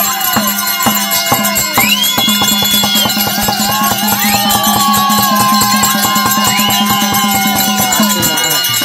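Therukoothu folk-theatre music: a two-headed barrel drum beats a steady, quick rhythm under a harmonium's held chords, while a high melody line slides up and holds, three times over.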